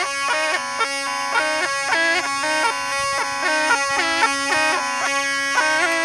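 Snake charmer's been (pungi), a gourd-bodied reed pipe with a drone, playing a quick melody of short repeated notes over a steady unbroken drone.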